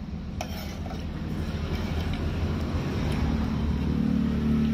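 A motor vehicle's engine running as a low, steady hum that grows louder over the last second or two. A spoon clinks once against the bowl near the start.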